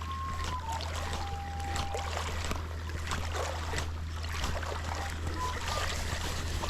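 Water washing and splashing at the shoreline over a steady low hum, with a few short whistling tones near the start and again near the end.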